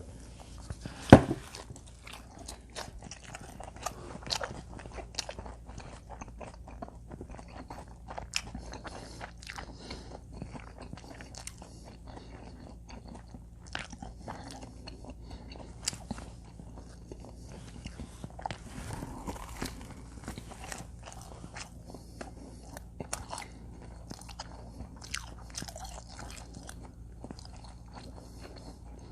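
Close-up eating sounds of combination pizza: bites into the crust, crunching and wet chewing with many small crackles and smacks. A single sharp, loud knock about a second in.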